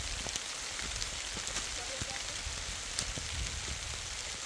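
Steady rain falling: an even hiss with scattered sharp drop taps throughout.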